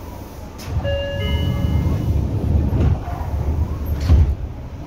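Seibu 6000 series electric train at departure: a sharp clunk, then a loud low rumble with a steady whine of several tones for about a second and a half. Another loud clunk comes near the end, after which the rumble drops away.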